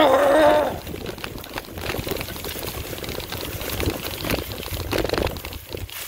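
Mountain bike riding on a dirt trail: a steady crackling rush of tyres rolling over the ground, with many small clicks and rattles from the bike. A brief wavering shout at the very start.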